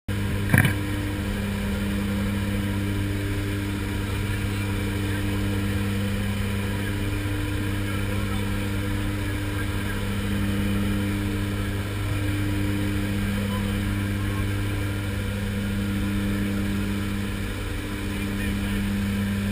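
Jump plane's propeller engines heard from inside the cabin: a steady, loud drone that swells and fades every few seconds. A sharp knock about half a second in.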